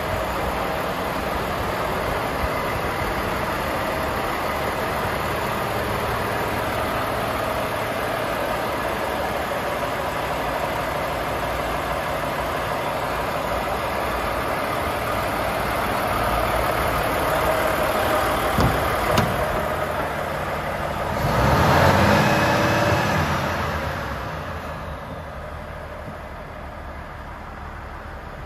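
Volvo FH 540's 13-litre six-cylinder diesel idling steadily. About three-quarters of the way through there is a louder swell of sound, after which the engine is quieter and duller, heard from inside the cab.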